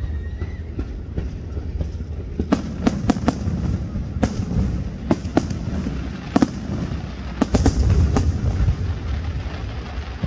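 Fireworks going off: runs of sharp bangs in quick succession, starting about two and a half seconds in, over a steady low rumble.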